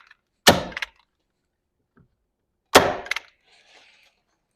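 Masterforce staple gun firing twice, two sharp snaps about two seconds apart.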